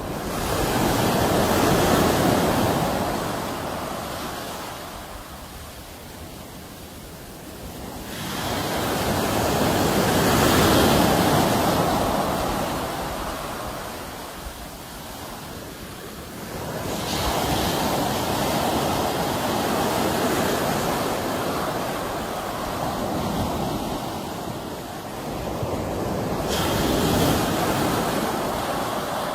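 Sea waves breaking and washing in. The rush of water swells and fades four times, about every eight seconds.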